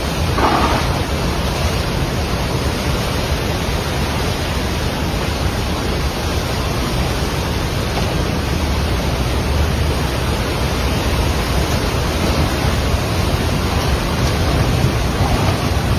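Steady rushing of the Trishuli River in flash flood, a heavy, unbroken water noise, with a brief higher-pitched sound about half a second in. The flood is taken for the outflow of a burst dam.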